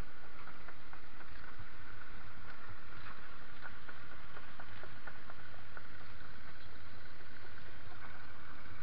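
Steady rumble and hiss from a helmet camera's microphone as a mountain bike rolls over a gravel track, with many small clicks and rattles throughout.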